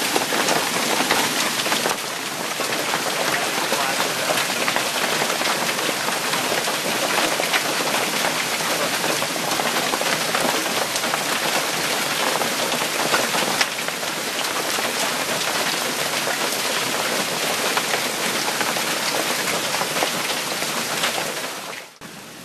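Hail storm: heavy hail and rain falling hard, a dense, steady patter of countless small impacts. About 22 seconds in it drops suddenly to a quieter, smoother rush.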